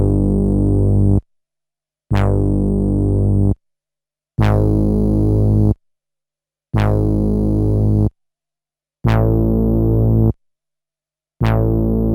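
A low sustained synthesizer note played back from a 12-bit SP-1200 sampler, repeated six times at even spacing. Each note lasts about a second and a half and cuts off sharply, with silence between.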